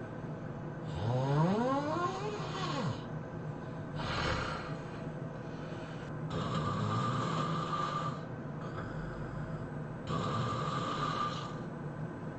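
A person snoring heavily: about four long, rasping snore breaths a few seconds apart. The first carries a whining pitch that climbs and then drops, and the later ones have a thin whistle running through them.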